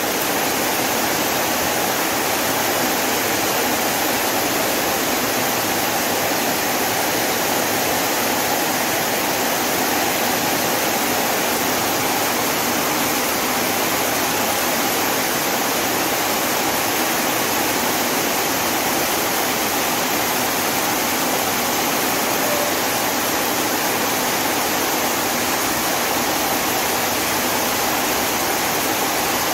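Heavy rain pouring down steadily, with runoff streaming off the edge of a shelter roof: a dense, even rush that doesn't let up.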